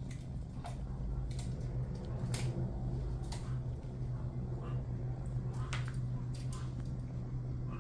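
Scattered light clicks and taps as kittens play with a wire-armed teaser toy on a weighted base, over a steady low hum.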